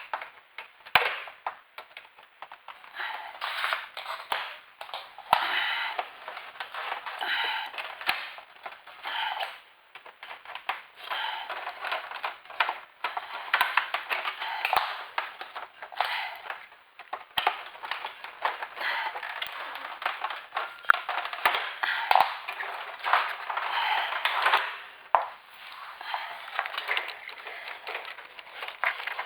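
Irregular scraping and rustling with many sharp clicks and knocks, coming and going in short bursts, as of hands working on parts.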